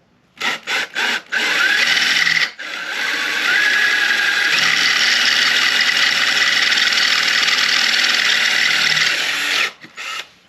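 Power drill boring into a motorcycle's aluminium swing arm: three quick trigger pulses, then a run of about a second, a brief stop, and a long steady run of about seven seconds that cuts off sharply, followed by two short blips.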